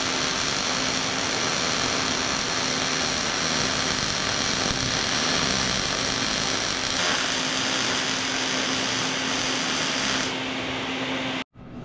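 Wire-feed (MIG) welding arc on sheet steel, a steady crackle with a faint hum, which thins out near the end and cuts off abruptly.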